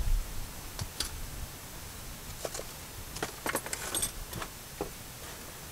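Light metallic clinks and jingles of hand tools and parts being handled: a few scattered ones, then a quick cluster about three to four seconds in.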